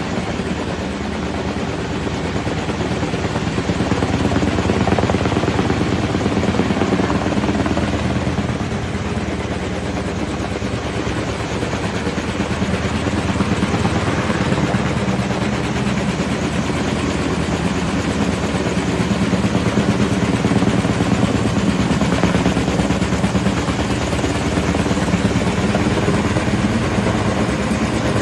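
Helicopter hovering overhead with a slung load, its rotor beating steadily and the engine running throughout, growing a little louder in the second half.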